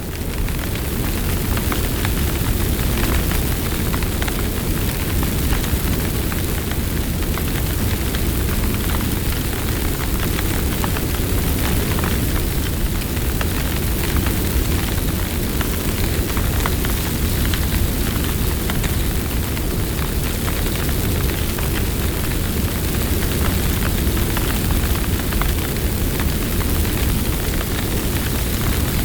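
Big wildfire burning close up: a steady low rumble of flames with dense, continual crackling.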